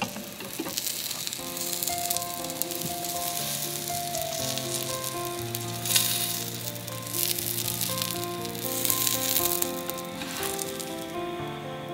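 Black-bean-stuffed pita halves sizzling as they toast in a nonstick frying pan, a steady hiss with a couple of brief clicks, over background music.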